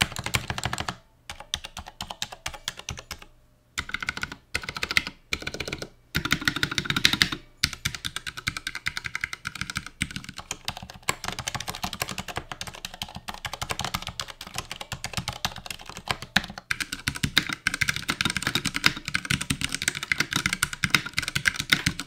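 Typing sound test on 60% mechanical keyboards: keystrokes on the Durgod & HK Gaming Venus with Cherry MX Silent switches, then on the Ducky One 2 Mecha Mini with Cherry MX Red switches. Short clusters of key presses with pauses at first, then fast continuous typing.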